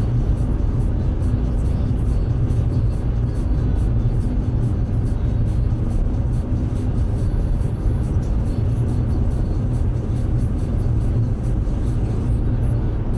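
Car interior at motorway speed: a steady low rumble of tyre and engine noise heard through the cabin.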